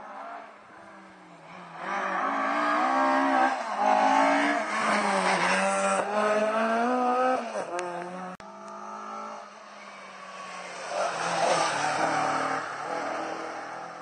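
Rally car engine revving hard, its pitch climbing and dropping as it changes gear on the approach and past. After a sudden cut, a second rally car accelerates with tyre noise on the wet road.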